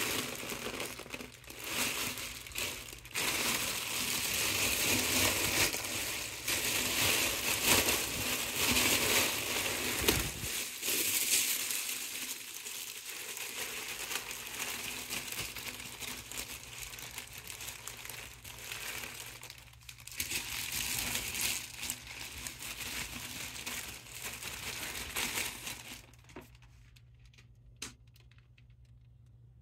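Foil Mylar balloon crinkling and crumpling in swells as hands squash the air out of it to deflate it. The crinkling stops near the end.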